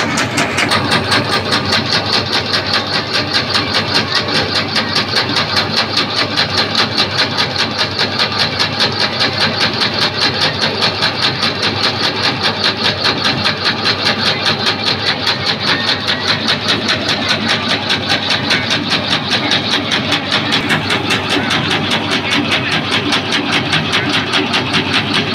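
A motor-driven meat grinder running steadily while processing meat into paste for meatballs, with an even pulsing beat several times a second.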